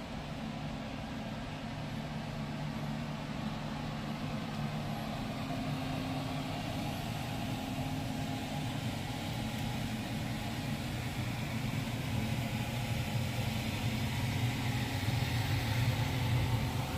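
Steady low mechanical hum of a ship's onboard machinery, heard from inside a lounge on board. It has a few constant low tones under a broad hiss and grows slightly louder near the end.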